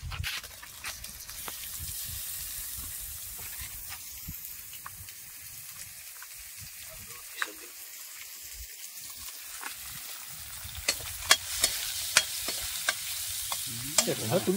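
Hot oil sizzling in a black kadai; from about eleven seconds in the sizzling grows louder, with sharp clicks and scrapes as chicken pieces are stirred in the pan.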